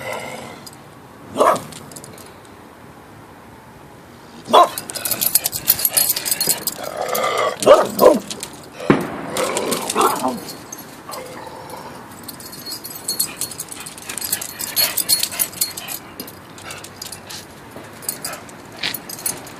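A dog barking several times, mostly in the first half, over spells of crackling fireworks. The barking is the dog's reaction to the fireworks.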